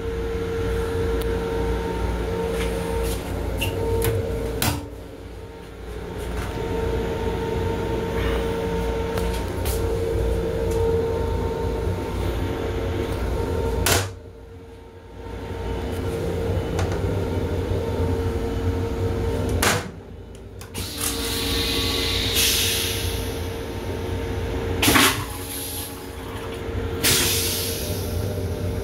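Plastic toilet lid and seat in an LIRR M7 railcar restroom being lifted and knocking shut or against the wall, several sharp clacks, over the railcar's steady hum and rumble.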